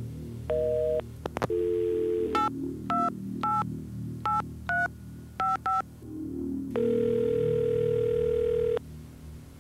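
A telephone line's busy signal beeps in half-second pulses, then after a couple of clicks a dial tone comes on, seven touch-tone digits are dialed, and one long ring of the ringback tone follows. Low background music runs underneath.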